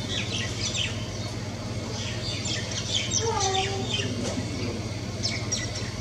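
Wild birds chirping: many quick, high, falling chirps throughout, with a lower, curving whistled note about three seconds in, over a steady low hum.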